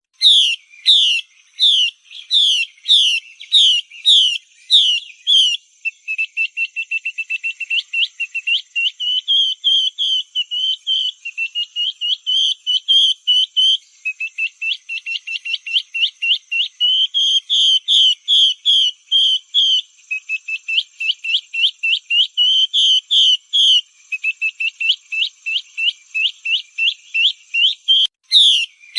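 Female Chinese hwamei calling: loud down-slurred whistled notes, under two a second, then long fast runs of short notes, returning to the slow whistles near the end. It is a lure call used to stir male hwamei into singing.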